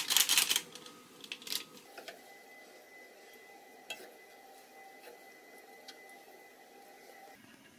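Wooden spatula scraping and knocking against a nonstick frying pan while stirring minced-meat sauce, clattering loudly in the first second, then only a few light taps over a faint steady hum.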